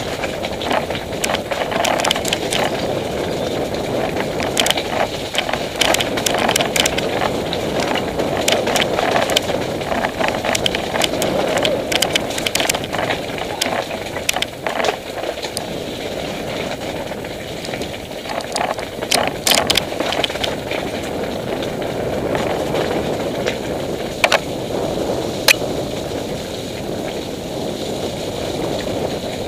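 Mountain bike rolling over a rough, muddy, rutted track: a steady rumble of tyres on dirt with frequent sharp clicks and rattles as the bike jolts, a cluster of them a little after two-thirds of the way in.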